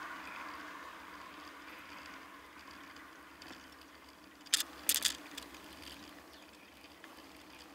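Bicycle being ridden on a tarmac road: steady tyre hum and wind on the microphone, with a short cluster of three or four sharp rattles a little past halfway.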